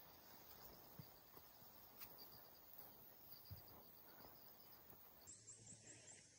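Near silence, with faint, evenly repeated high insect chirping.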